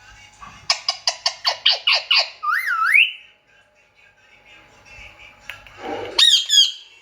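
Female Indian ringneck parrot calling: a quick run of about ten sharp squawks, then a wavering whistle; after a pause, a loud wavering squawk near the end.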